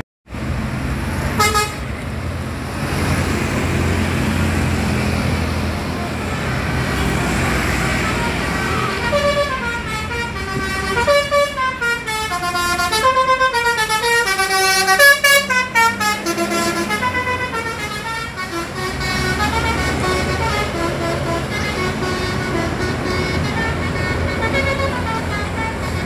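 Tour buses' 'basuri' musical multi-tone horns playing a tune. There is one short blast about a second and a half in, then a long run of quick stepped notes rising and falling, followed by more held notes. Bus engines and traffic run steadily underneath.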